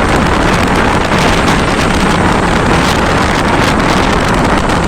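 Loud, steady rush of wind buffeting the microphone while travelling in a moving vehicle.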